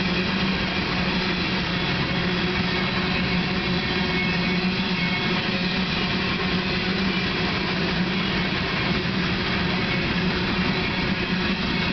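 Coal train's steel hopper cars rolling past at speed: a steady, loud rolling noise of wheels on the rails with a constant low hum under it.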